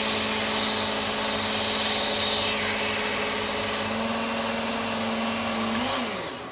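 Work Sharp Ken Onion belt sharpener with the blade grinding attachment running, its abrasive belt grinding the edge of a Gränsfors Bruks Scandinavian forest axe: a steady motor whine under a loud hiss. Near the end the motor is switched off and its pitch falls as it spins down.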